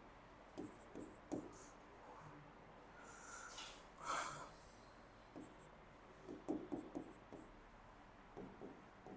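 Faint handwriting sounds: short taps and strokes of a pen on a writing surface, coming in small clusters, with one longer, louder stroke about four seconds in.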